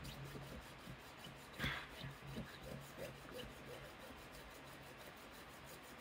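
Jeweler's saw cutting a notch into an Abloy High Profile key blank held in a jig: faint rasping saw strokes, one a little louder about one and a half seconds in.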